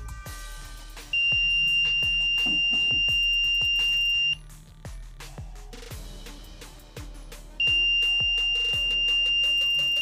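Buzzer of a 555-timer laser alarm circuit sounding a steady, high-pitched tone twice, each about three seconds long: the alarm set off when the laser beam is broken. Faint background music underneath.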